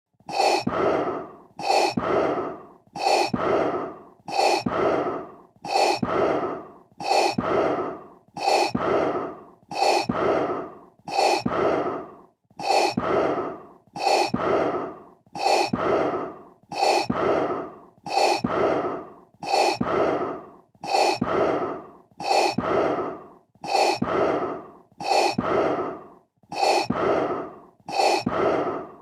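Darth Vader's masked, mechanical respirator breathing sound effect, repeating in a steady rhythm of breath strokes about one a second. Each stroke starts sharply and fades away, and the sound begins right at the start out of silence.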